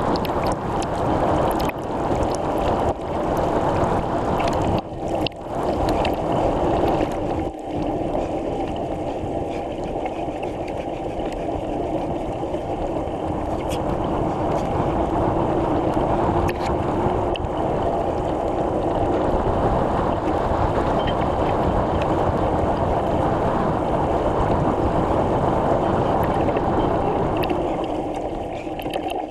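Steady rushing of wind over the microphone and tyre noise from a moving bicycle, with a constant low hum underneath.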